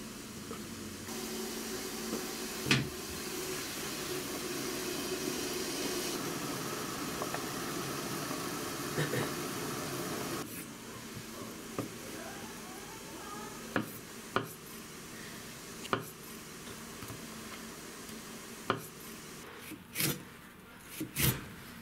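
A pot of fish simmering in broth, a steady bubbling hiss. Then a kitchen knife cuts through a leek on a plastic cutting board: about six sharp single strikes, one every one to two seconds.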